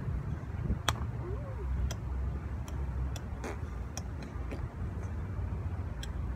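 Irregular sharp clicks over a steady low rumble, with one faint short rising-and-falling tone about a second and a half in.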